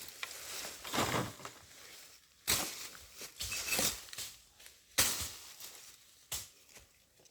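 A machete chopping through brush: three sharp strikes a couple of seconds apart, with rustling and swishing between them.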